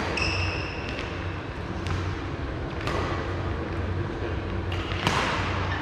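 Badminton rally: sharp cracks of rackets striking the shuttlecock, the two loudest about three and five seconds in, with a brief squeak near the start over a steady low hum.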